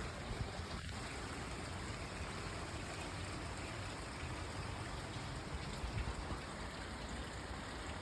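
Steady rain falling, a constant even hiss of drops.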